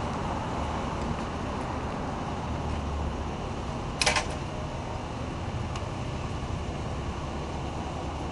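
Steady street traffic noise, with one short, sharp noise about four seconds in.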